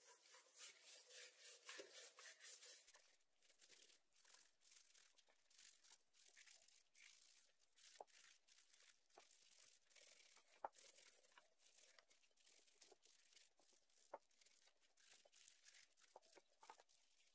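Gloved hands rubbing and patting dry spice powder into the skin of a raw whole chicken. The rubbing strokes are faint and rapid, busiest in the first few seconds, with a few sharp clicks later on.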